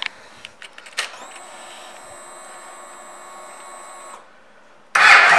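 A click, then a faint steady electric whine from the 2012 Yamaha Road Star Silverado S for about three seconds, typical of the fuel pump priming with the ignition switched on. Just before the end the 1670 cc air-cooled V-twin suddenly starts up loudly.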